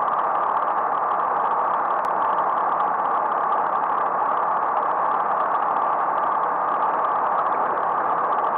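Steady, even rushing noise of travel along a road, the wind and motion noise of a moving camera, with a faint click about two seconds in.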